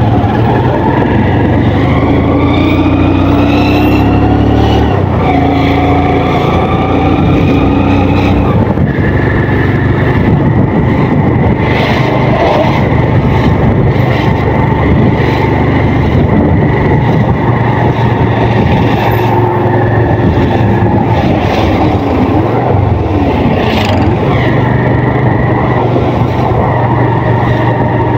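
Motorcycle engine running under way, its pitch climbing twice as it pulls up through the gears in the first eight seconds or so, then holding steady at a cruising speed.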